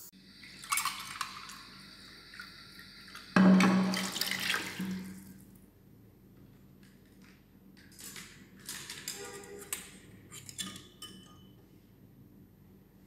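Facial mist spray bottle spraying: a short hiss about a second in, then a louder, longer spray about three and a half seconds in that fades over two seconds, followed by a few light clicks.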